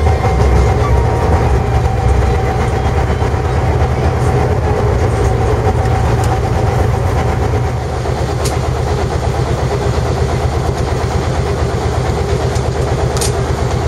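Boat engine running steadily with a low, even rumble.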